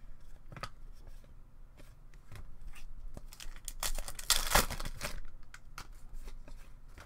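Hockey trading cards being handled and slid against one another, with scattered light clicks and a louder, brief scraping rustle about four seconds in.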